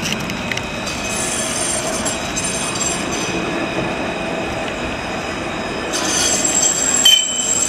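Tram running past at close range, a steady rolling rumble with thin, high wheel squeal over it. The squeal grows brighter near the end, where two short sharp sounds stand out about a second apart.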